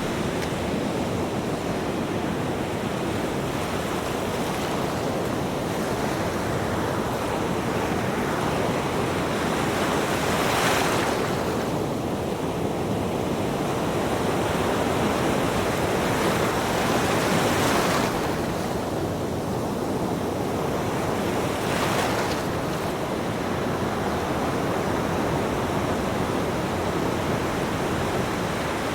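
Ocean surf: a continuous wash of breaking waves, with a few waves rising louder, about 10 seconds, 18 seconds and 22 seconds in.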